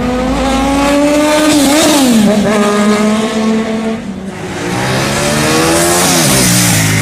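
Four-cylinder sport motorcycles accelerating hard past, two passes: each time the engine note climbs, then drops sharply as the bike goes by.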